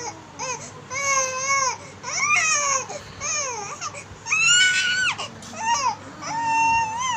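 A baby crying: a string of short, high-pitched wailing cries, the longest and loudest about four and a half seconds in.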